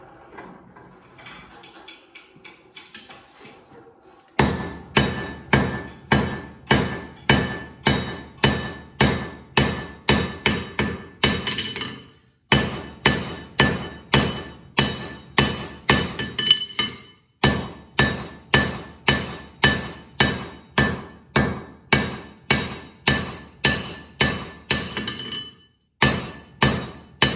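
Hand hammer striking a piece of an old steel file on an anvil, drawing it out into a flint striker's basic shape. The blows come about two a second, each with a bright metallic ring, in three runs broken by short pauses; they start about four seconds in, after some faint clatter.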